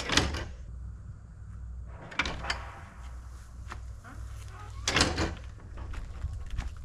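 Three sharp knocks or bangs, about two and a half seconds apart, over a steady low hum.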